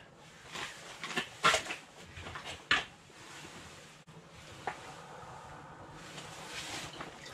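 A few short knocks and scuffs, the loudest about a second and a half in and just before three seconds in, with a lighter click later: handling sounds of an angler shifting on the ice and releasing a smallmouth bass down the fishing hole.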